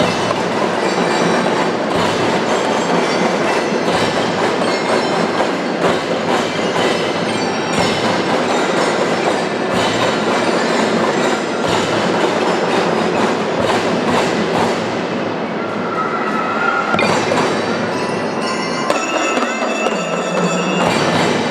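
Children's marching band playing: dense drumming with a deep drum beat about every two seconds, and bell-like tones coming in near the end.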